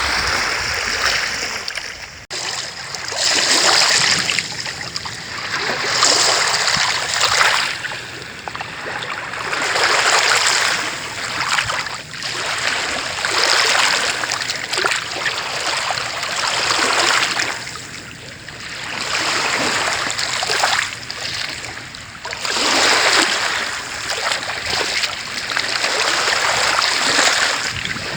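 Small waves breaking and washing onto a shore, a new swell of surf every two to three seconds.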